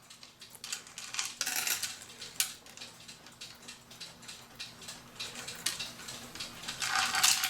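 Metal cuckoo clock chains clinking and rattling as they are fed through the movement's chain holes: a run of small light clicks, busier about a second and a half in and again near the end.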